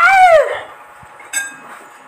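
A man's loud, strained yell, about half a second long, rising and then falling in pitch. About a second later comes a single light clink of a metal spoon or fork against a ceramic bowl.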